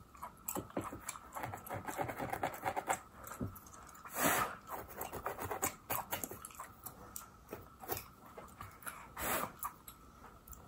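Close-miked ASMR sounds: irregular crackling clicks of a plastic comb tail scratching at a mannequin's wig scalp, mixed with wet gum-chewing smacks, and two longer breathy puffs about four and nine seconds in.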